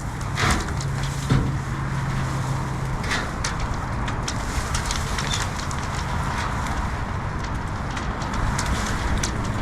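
Wind noise on the microphone with a steady low rumble, and scattered clicks and snaps throughout. Sharper knocks come about half a second and just over a second in, from storm-bent roof metal caught in tree branches being handled.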